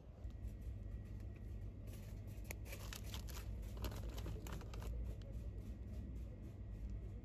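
Crinkly plastic packaging of a packet of roasted sushi nori being handled, a flurry of crackles in the middle, over a steady low hum.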